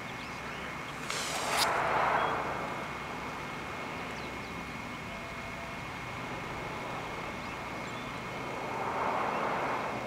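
Road traffic ambience: a steady low hum with two vehicles swelling past, one about a second in and one near the end, and a quick run of sharp clicks just after the first second.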